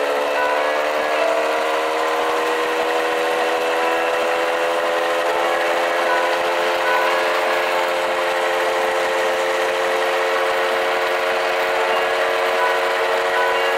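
1997 Kinetic Luna TFR 50cc two-stroke moped engine running hard while riding, near its top speed of about 25 mph. Its pitch climbs slowly over the first several seconds and then holds steady, over a steady hiss of wind.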